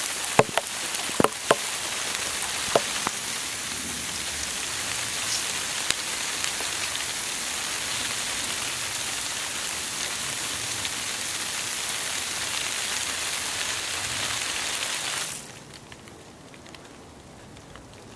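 Water jetting up out of a half-inch copper ground-rod pipe fed by a garden hose: a steady hiss of spray falling back onto the grass, with a few sharp clicks in the first second and a half. About fifteen seconds in the water is shut off and the spray stops abruptly, leaving only a faint hiss.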